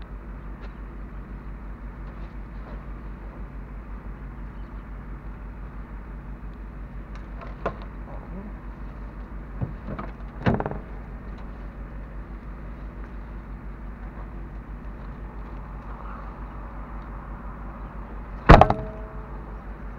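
Car engine idling with a steady, evenly pulsing low rumble. A few knocks of things being handled in the open cabin come about eight and ten seconds in, and a loud metallic clank with a brief ring comes near the end.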